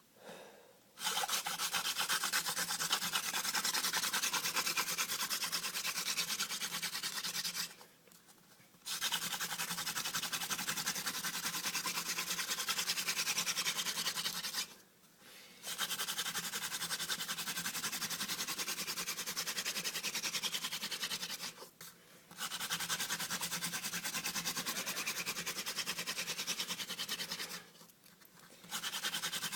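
Wooden hand-drill spindle spun back and forth between the palms in the socket of a hearth board, drilling for an ember. It makes a fast, dry rubbing in four runs of about six to seven seconds each, with a pause of about a second between runs as the hands go back to the top of the spindle.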